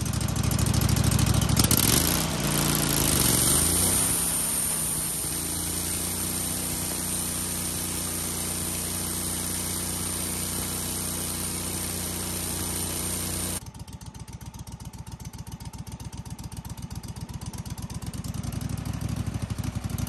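Wood-Mizer LX150 bandsaw mill's gasoline engine throttling up and running under load as the band blade makes its first pass through the log. About 13 seconds in, the high cutting noise stops abruptly, leaving a quieter, pulsing engine sound that grows louder again near the end.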